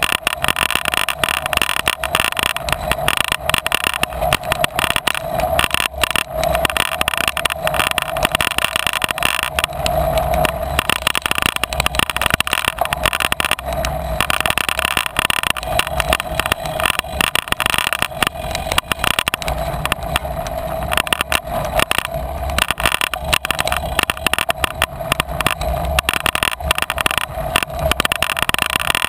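Bicycle riding over a rough dirt-and-grass track: a dense, continuous clatter of knocks and rattles over steady tyre noise, with a steady hum underneath.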